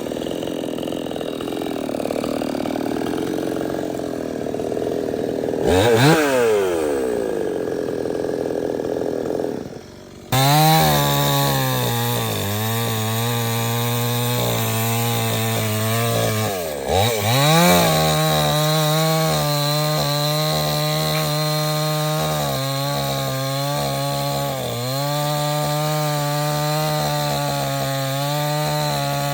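Stihl 070 two-stroke chainsaw running hard while cutting into teak wood. The engine pitch sags under load and recovers several times, with a deep dip and rise about six seconds in and another about seventeen seconds in. There is a brief drop about ten seconds in.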